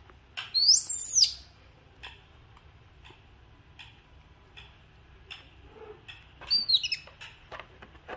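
Baby monkey crying: one high call that rises and falls over about a second, then a quick run of short, falling high cries about six and a half seconds in.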